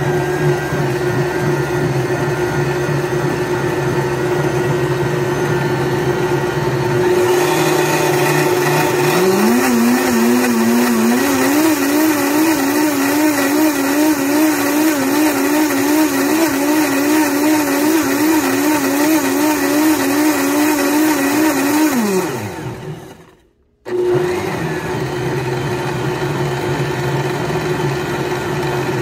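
Blendtec blender motor blending kava powder into water on a Medium High cycle. It speeds up and gets louder about seven to nine seconds in and runs with a pitch that wavers up and down. Near the end it winds down and stops for about a second, the cycle's programmed short break, then starts again.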